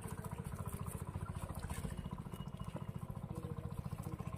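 An engine running steadily, a low, rapid, even chugging.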